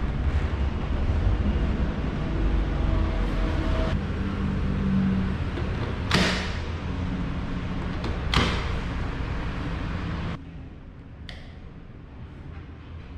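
Zhan Shen ZS-DC990XBT brushless air compressor running steadily, with two short sharp bursts about six and eight seconds in; the running noise cuts off suddenly about ten seconds in.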